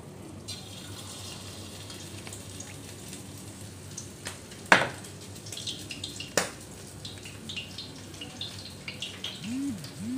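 Battered squid rings deep-frying in hot oil in a wok: a steady sizzle with scattered spattering crackles. Two sharp clicks stand out about 5 and 6.5 seconds in, and two short squeaks come near the end.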